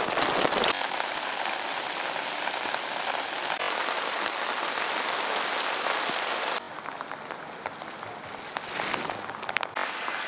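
Steady rain pattering on water and nearby surfaces, an even hiss. About six and a half seconds in it drops to a softer patter, with a few sharper drips near the end.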